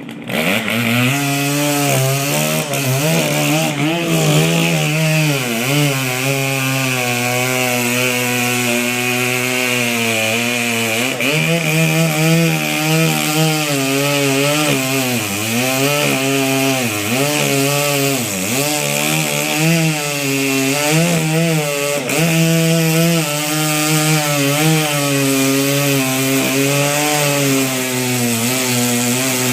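Large Stihl two-stroke chainsaw cutting into a white oak trunk, its engine pitch repeatedly dipping and recovering as the chain loads up in the wood.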